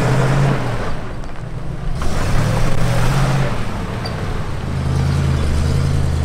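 1972 Ford C600 cabover truck's big-block Ford FE V8 driving the truck along. Its pitch rises and falls a few times as the throttle is worked, then holds steady near the end.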